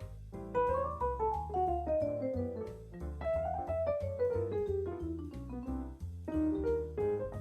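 Jazz instrumental: a melodic solo line played in two long falling runs of quick notes over a walking bass from the backing track, with a new phrase starting near the end.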